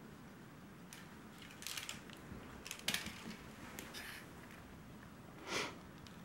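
Mylar crinkle ball rustling in several short crackly bursts as kittens bat and bite at it, the sharpest crackle about three seconds in and another near the end.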